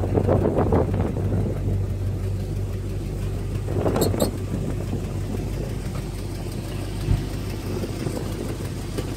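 Engine of a 1954 Mercury hardtop idling with a steady low hum, with rustling from hands on the seat fabric near the start and a brief sharp click about four seconds in.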